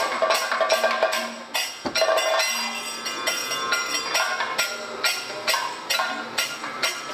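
Kathakali percussion accompaniment: a steady rhythm of sharp strokes, about four a second, with ringing metallic tones over drums. The rhythm breaks briefly about two seconds in, then carries on.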